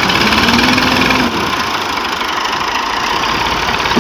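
Diesel farm tractor engine running with a fast, even chug while the tractor works with its rear wheel dug into soft earth. The engine eases slightly a little over a second in.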